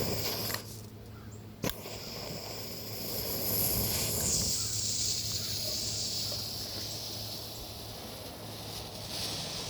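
A sharp click, then a homemade smoke grenade hissing as its red smoke compound burns, the hiss growing stronger about three seconds in.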